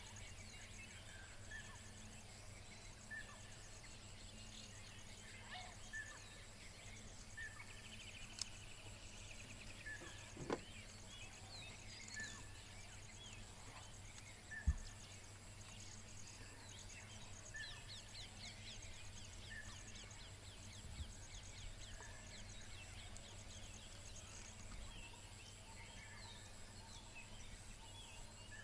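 Wild daytime ambience of birds and insects: one bird repeats a short call about every second and a half while other birds chirp and an insect keeps up a steady, high pulsing drone. A low steady hum lies underneath, and there are a couple of single sharp knocks, the louder one about halfway through.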